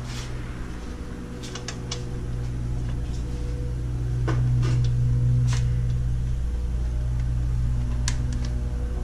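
Steady low mechanical hum that swells a little in the middle, with scattered light clicks and taps from small parts being handled during a chainsaw spark-plug change.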